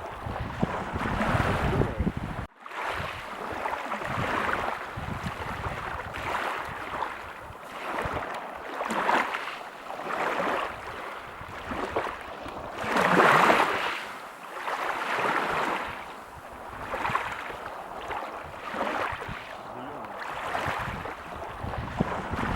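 Small waves washing onto a beach, one surge of water every couple of seconds. The biggest wave comes in about halfway through, and the sound drops out for a moment near the start.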